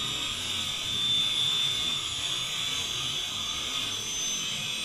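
Steady hiss of gas and vapour jetting from the nozzle of a small liquid rocket engine on a test stand, holding an even level throughout.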